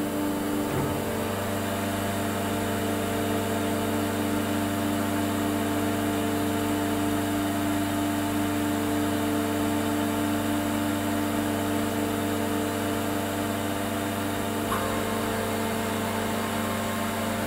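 Okuma MX-40HA horizontal machining centre running with its spindle turning and no cut being made: a steady machine hum of several fixed tones that holds constant.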